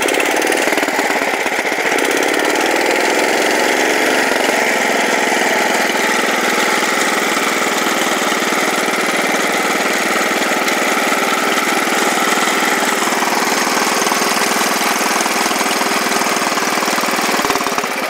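Wheel Horse 701 garden tractor's low-hours, freshly fitted Kohler K181 single-cylinder engine running while the tractor is ridden; its pitch rises over the first few seconds as it speeds up, then holds steady.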